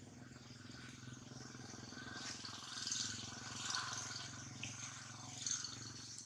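Outdoor ambience dominated by a steady low motor hum, like an engine running in the background, with a hissy, rustling layer above it that swells a few times; it cuts off abruptly at the end.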